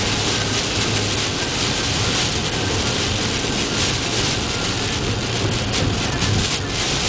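Heavy rain falling steadily, a dense, even hiss with a low steady rumble underneath.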